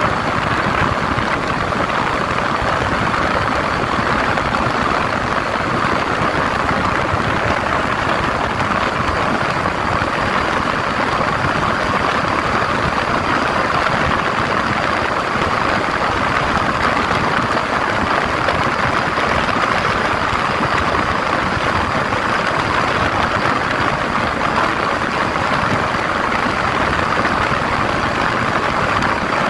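Steady rush of wind over the microphone together with the drone of a 150 cc Yamaha motorcycle engine, running at a constant cruising speed of about 90 to 100 km/h. The sound stays even, with a faint thin high whine on top.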